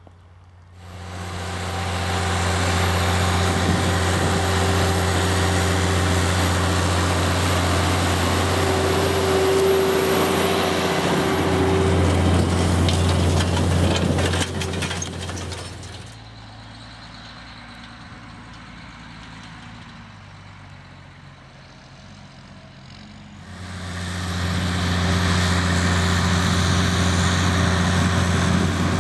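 New Holland T8050 tractor's diesel engine running steadily under load as it pulls a Köckerling Vector cultivator through the soil. It comes in loud about a second in, drops to a fainter, more distant level for several seconds past the middle, and comes back loud near the end.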